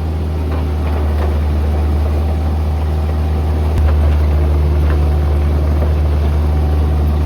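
Truck driving, heard from inside the cab: a steady low engine and road drone.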